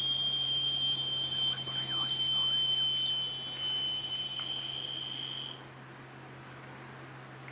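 A loud, steady, high-pitched insect drone that cuts off abruptly about five and a half seconds in, leaving a fainter steady insect drone.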